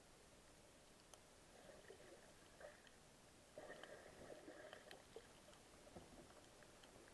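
Near silence: faint underwater ambience with scattered faint clicks and a faint hum that swells briefly in the middle.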